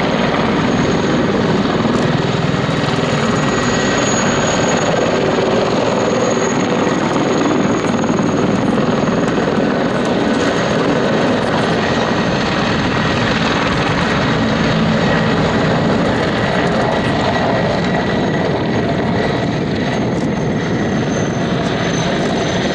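Mil Mi-24V Hind E attack helicopter flying low and close. Its main rotor and twin turboshaft engines give a loud, steady rotor noise with a thin, steady high turbine whine on top.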